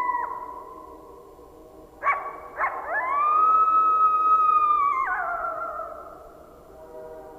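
Coyotes howling. A held howl ends with a falling drop at the start, and about two seconds in come two short yips. Then a long howl rises, holds steady and falls away a little after the five-second mark, over fainter, lower howls that run on underneath.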